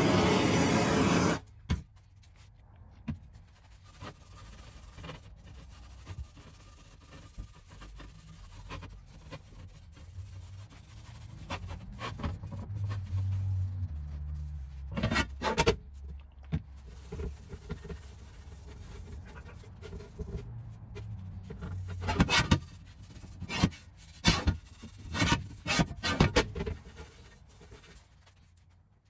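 A torch flame hissing over a bare cast iron griddle for about a second and a half, then cutting off. After that, a cloth rubbing oil over the cast iron surface of the griddle, with several sharp knocks and clicks in the middle and toward the end.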